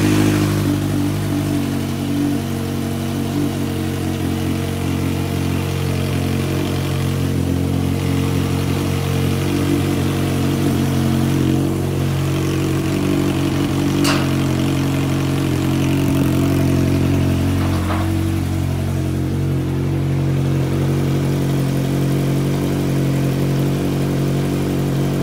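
Kawasaki Ninja H2's supercharged inline-four idling steadily just after a cold start. A single sharp click comes about halfway through.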